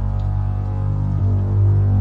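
Dark ambient music: a deep, steady drone with layered sustained tones above it, swelling slightly a little past a second in.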